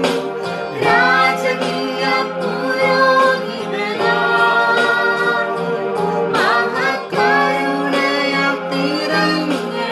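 Music: a singing voice carrying a melody over sustained instrumental accompaniment.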